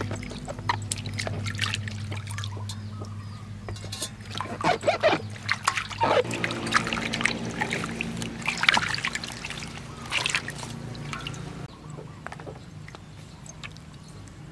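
Water splashing and trickling in a steel basin as hands rub and swish vegetables (a bell pepper, then green onions) to wash them, in irregular splashes that are heaviest in the middle and die down near the end.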